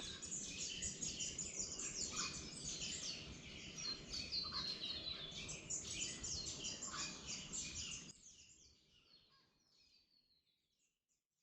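Many small birds calling and chirping at once in a dense chorus of short, quick, often downward-sliding notes, over a low background hiss. The chorus fades away about eight seconds in.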